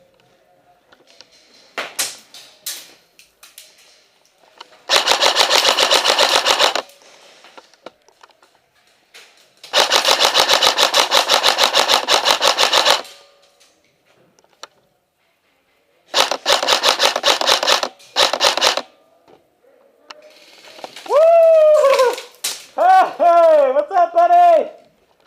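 Airsoft rifle firing long full-auto bursts, rapid evenly spaced shots in three runs of about two to three seconds each, with a few single shots before them. Near the end a player shouts in drawn-out, wavering calls.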